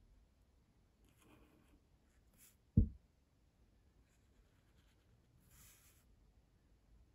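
Ink pen scratching across newsprint in a few short drawing strokes. A single dull low thump just under three seconds in is the loudest sound.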